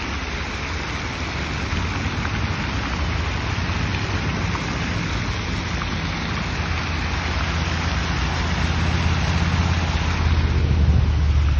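Fountain jets splashing into a pool, a steady rain-like hiss of falling water. Under it a low rumble that grows louder in the last few seconds.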